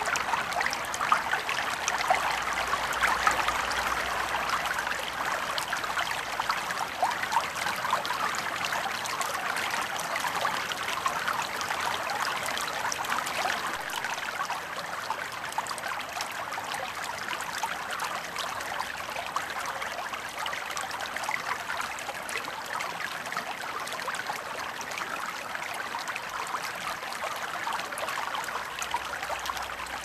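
Shallow river water flowing steadily, with fine trickling and bubbling, a little softer in the second half.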